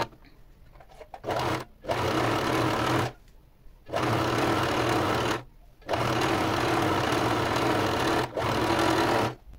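Electric sewing machine stitching a seam through knit fabric in bursts: a short run about a second in, then four longer runs of one to two and a half seconds with brief pauses between them.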